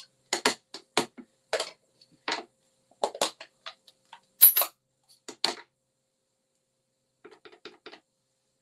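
Hard plastic clicks and taps of stamping tools being handled: an ink pad's plastic case and a clear acrylic stamp block set down and knocked together, about a dozen separate clicks with one sharp snap about four and a half seconds in. Near the end, a quieter run of small taps as the stamp is pressed onto the ink pad.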